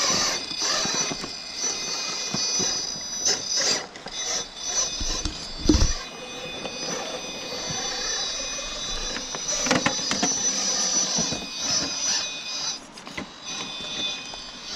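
Electric motor and geared drivetrain of a 1:10 scale RC rock crawler whining steadily at high pitch as the truck crawls over boulders. Scattered knocks from the tyres and chassis on rock, and a heavy low thump about six seconds in.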